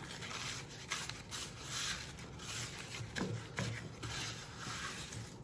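Paper towel dampened with rubbing alcohol rubbed back and forth over the hard, cured epoxy surface of a glitter phone stand, making a series of soft, irregular swishing strokes.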